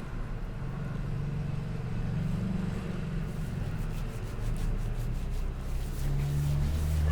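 Low rumble of vehicle engines, with a pitch that drifts up and down like traffic going by.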